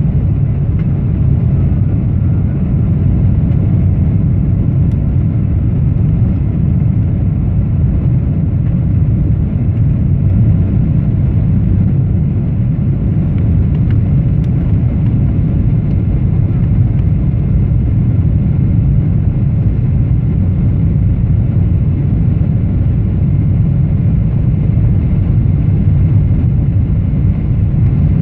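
Steady cabin noise inside a Boeing 777-300ER on approach: an even, loud rumble of airflow and its GE90-115B engines, with no changes or sudden events.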